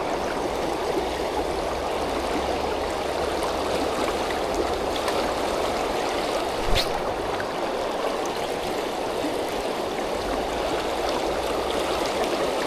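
The Tyenna River's fast-flowing current rushing steadily. A single light knock comes about seven seconds in.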